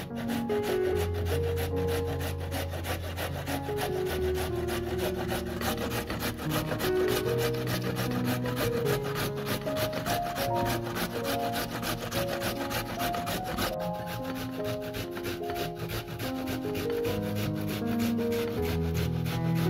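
A carrot being grated on a stainless-steel box grater, in quick, regular rasping strokes, with soft background music under it.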